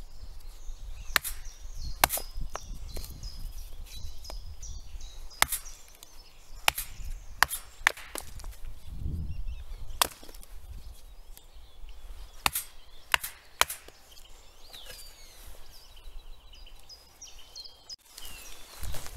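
About a dozen sharp knocks at irregular intervals, with small birds chirping high in the background.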